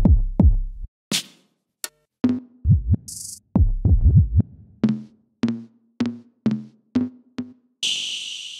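Analog-style drum-machine samples from the Raw Voltage Maschine expansion, triggered one at a time: deep kick drums, a short hi-hat-like hiss, then a run of evenly spaced pitched drum hits about two a second. A long, bright cymbal-like hit comes near the end.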